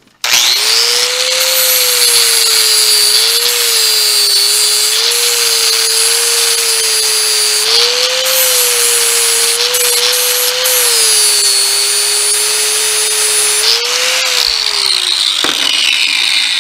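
Angle grinder with a flap disc grinding the riveted heads off the pins of a steel motorcycle roller chain held in a vise. The motor's whine dips and recovers as the disc is pressed onto the pins, then winds down near the end.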